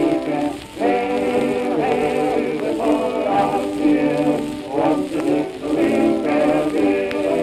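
Music played from an old 78 rpm shellac record: a wordless stretch of the song between sung verses, held chords changing about once a second, with a few faint surface clicks.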